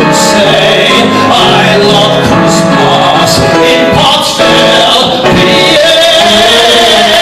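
A man singing into a microphone over instrumental accompaniment, building to a long held note with vibrato near the end.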